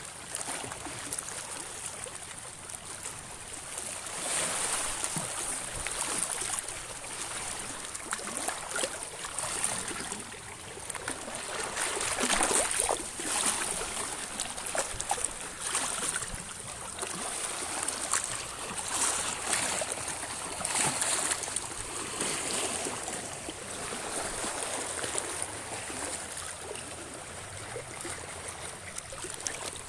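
Small sea waves lapping and washing over shoreline rocks, the wash swelling and easing every few seconds.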